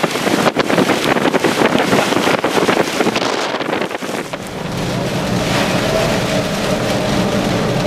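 Hurricane wind gusting hard against the microphone with driving rain. About four seconds in it gives way to the steadier drone of a vehicle cabin, with a low engine hum under rain on the windshield.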